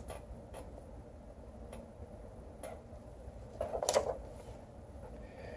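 Pages of a paper picture book being handled and turned: a few faint light clicks, then a brief louder rustle and flap of the page turning about four seconds in.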